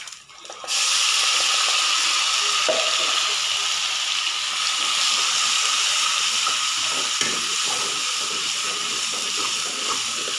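Wet masala paste hitting hot oil in a kadai and sizzling loudly, the hiss starting suddenly about a second in and easing a little as it goes. Spatula strokes scrape through the paste in the second half.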